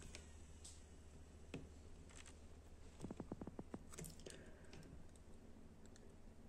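Faint clicks and taps from handling a Sony MD Walkman portable MiniDisc player, with a quick run of about eight soft clicks a little past halfway.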